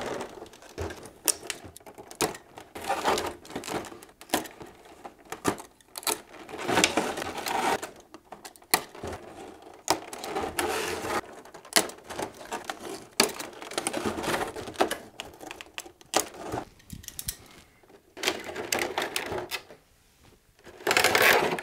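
Plastic packaging bags crinkling and rustling in bursts as toy figures are pulled out of them, with irregular clicks and crackles.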